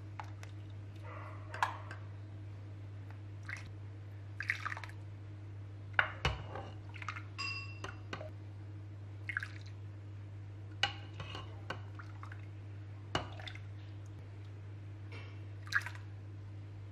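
A metal ladle scooping thin barley and soya liquid and pouring it into a plastic tub: a series of short, separate splashes and drips with light clinks, over a faint steady low hum.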